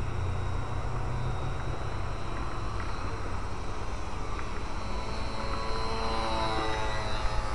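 Radio-controlled Super Cub LP's brushed electric motor and propeller whining in flight, growing louder and shifting in pitch as the plane passes near, about two-thirds of the way through. Wind rumbles on the microphone.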